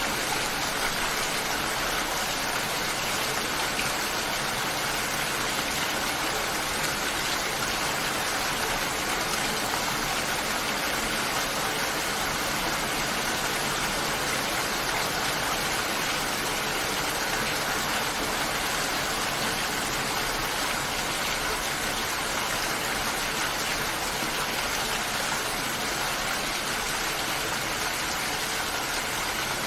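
Heavy rain falling steadily: a dense, even hiss of water with no separate drops standing out.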